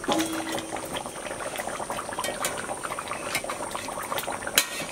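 Mutton and potato curry bubbling in a metal pot, with many small pops from the thick simmering gravy. There is one sharp knock about four and a half seconds in.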